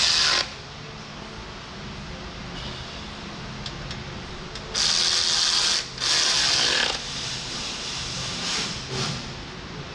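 Hand tool work on the hydraulic hard-line fittings of a Kubota LA535 front loader. There are short loud bursts of rasping mechanical noise, a brief one at the start and two about a second long about five and six seconds in, then softer scraping, over a steady low hum.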